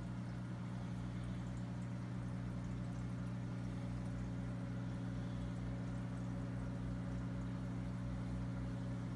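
Aquarium running: a steady low hum with the bubbling of water from an air stone.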